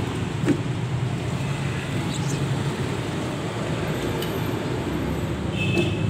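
Steady low background rumble, with a single light click about half a second in.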